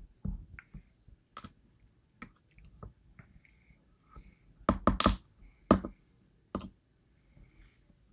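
Small metal lock pins and tools clicking and tapping on a work surface as a disassembled DOM IX lock's pins are handled, with a cluster of louder sharp clicks about halfway through.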